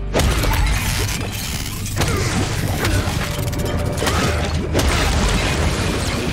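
A string of heavy smashing impacts with mechanical crunching and clattering: an animatronic gorilla being stomped and broken apart, in a film sound mix over a low drone.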